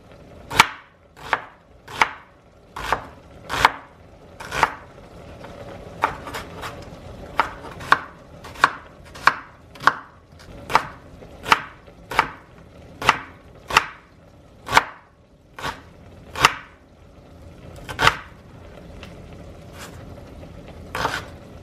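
Knife dicing an onion on a wooden cutting board: sharp knocks of the blade meeting the board, about one to two a second, with a pause of a few seconds near the end.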